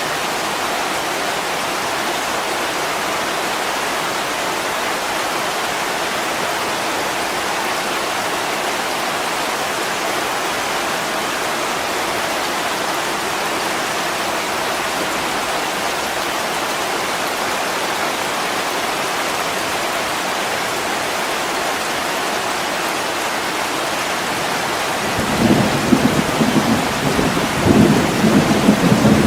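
Steady heavy rain falling, with a low rumble of thunder rolling in near the end and swelling unevenly.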